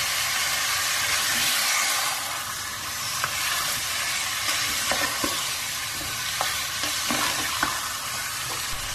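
Goat meat and spice paste sizzling as they brown over high heat in an open pressure-cooker pot. A spatula stirring through the meat scrapes and knocks against the pot now and then.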